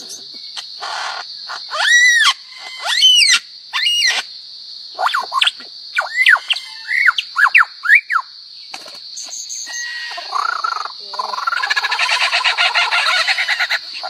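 Superb lyrebird singing its mimicked calls: two loud calls that rise and fall in pitch, then a run of shorter quick calls, then a fast chattering rattle near the end, over a steady high buzz.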